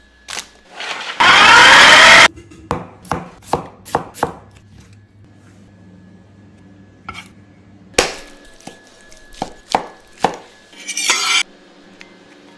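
Kitchen food-preparation sounds. About a second in there is a loud whirring rush that lasts about a second. A quick run of sharp knocks like knife strikes on a wooden cutting board follows, then a few more scattered knocks and a short scrape near the end.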